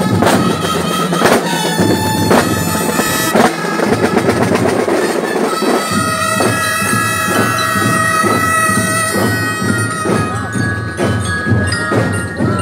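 Marching drum corps playing on the move: snare and bass drums beating a steady cadence, with held melody notes from the band's melody instruments joining about halfway through.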